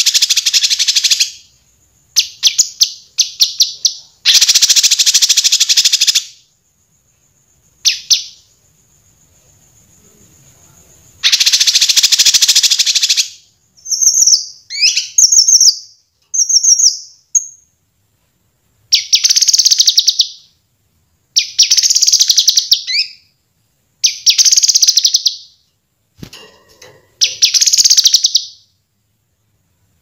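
Kinoi songbird singing loud, bright phrases of rapid trills and chirps, each a second or two long, with short pauses between them. It is a song recording used as masteran, training song for cage birds.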